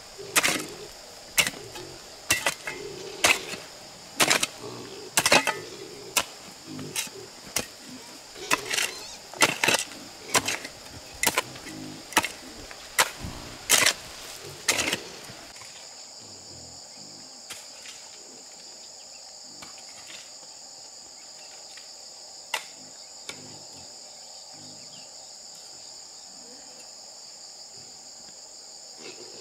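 Repeated chopping blows on wood, about one a second, stopping about halfway through. A steady high trilling of insects, crickets or cicadas, runs underneath and is left alone after the blows stop, with one more knock later on.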